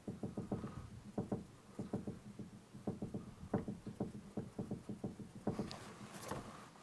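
A small paintbrush dabbing paint onto the backdrop board, its bristles poking the wall in quick, irregular soft taps, several a second. A short, scratchier brushing sound comes near the end.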